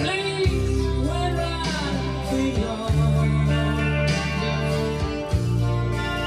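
A song with singing and guitar, played back from cassette tape on a Tandberg TCD440A cassette deck restored to its factory specifications.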